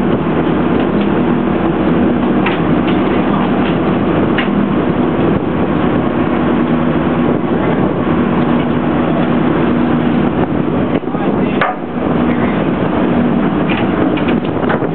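A fishing boat's engine running steadily with a constant low hum, under a haze of wind and water noise, with a few light knocks.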